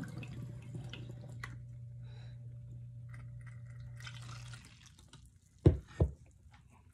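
Kombucha pouring from a plastic pitcher through a plastic funnel into a glass swing-top bottle, a steady trickle that stops about four and a half seconds in. Two loud thumps follow shortly after.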